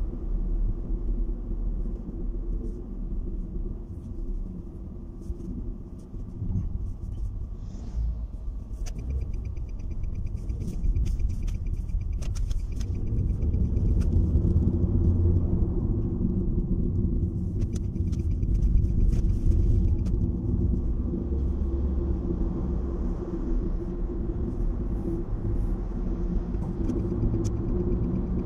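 Car cabin noise while driving at road speed: a steady low rumble of tyres and engine, with stretches of faint ticking in the middle.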